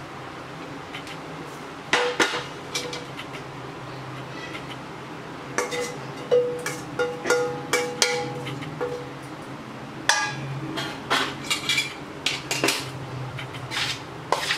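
Steel pot knocking and scraping against a stainless steel bowl as steamed rice-flour dough is tipped out and scraped loose: sharp metal clanks, several leaving a short ringing, then a quicker run of clinks and knocks in the last few seconds.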